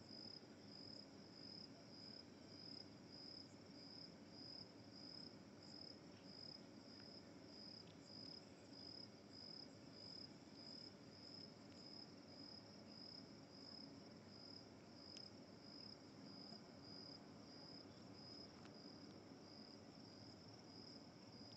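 Cricket chirping steadily, a faint high-pitched pulse repeating about two to three times a second over a low background hiss.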